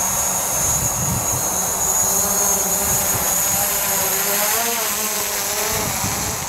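DJI Mavic Pro quadcopter's four propellers whining steadily as it hovers and then climbs away, a high-pitched whine over a lower hum, with some lower tones wavering up and down in pitch about four seconds in.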